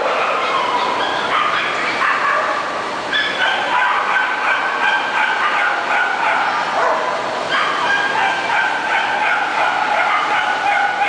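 Several dogs whining and yapping over one another in a continuous high-pitched chorus.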